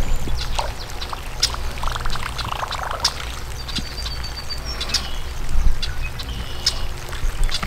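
Pond-side ambience: scattered bird chirps and whistles, with a short rattling trill about two seconds in, over a steady low wind rumble on the microphone.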